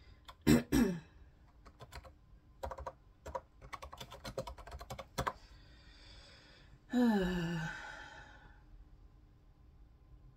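Typing on a computer keyboard: scattered keystrokes and clicks over a few seconds. There is a short vocal sound near the start and a breathy sigh with a falling pitch about seven seconds in.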